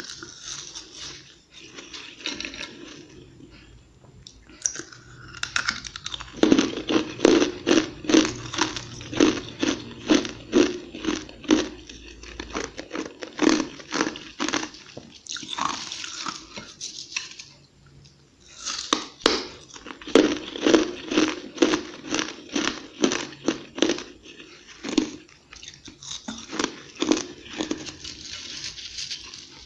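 Close-up chewing of a mouthful of fluffy, flaky frozen ice: crisp crunches about two a second, in several bouts with short pauses between them.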